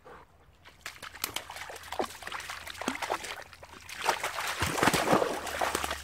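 A dog wading and splashing through shallow muddy pond water, with sloshing and dripping as its legs move. The splashing grows loudest about four seconds in, as it heads for the bank.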